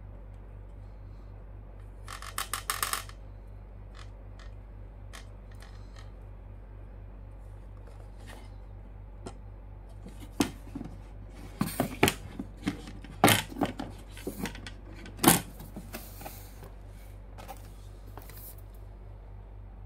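Handling noise from a PC motherboard being turned in the hands and set down on its cardboard box. A quick rattle of clicks comes about two seconds in, then a run of sharp taps and knocks from about ten seconds, the loudest two about two seconds apart.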